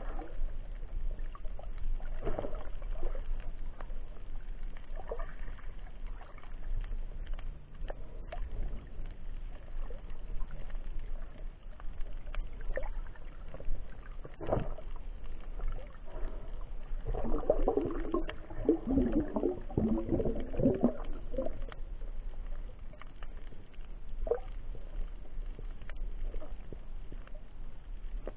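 Muffled underwater sound picked up by a submerged camera: a steady low rumble of moving water with scattered small clicks and knocks. A few seconds of louder gurgling come about two-thirds of the way through.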